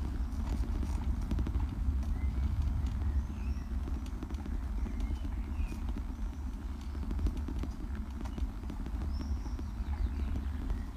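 Bicycle rolling over a brick-paved street: a steady low rumble with a quick, irregular clatter from the bumps in the bricks. Small birds chirp briefly now and then.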